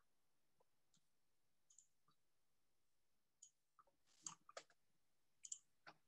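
Near silence with a few faint, scattered clicks of a computer mouse and keyboard, a small cluster of them about four seconds in.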